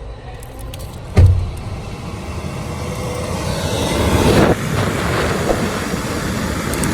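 Honda Civic RS being started: a loud thump about a second in, then a rushing noise that builds for a few seconds, peaks, and settles into a steady run.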